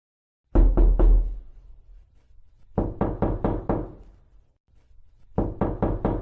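Knocking on a door in three rounds of quick knocks: about three, then about five, then about five more, with short pauses between the rounds. The last round cuts off abruptly.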